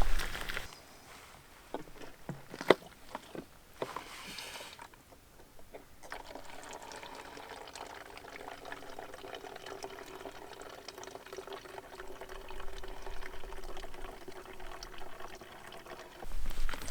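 Liquid being poured steadily into a container for about ten seconds, with a held ringing tone, after a few clicks of handling. A louder sound starts just before the end.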